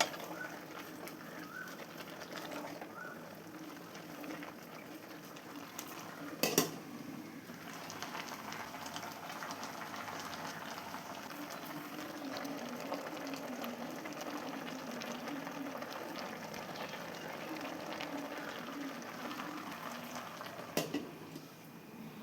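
Vegetables simmering and bubbling in a cooking pot, a steady bubbling hiss, with a sharp utensil knock about six seconds in and another near the end.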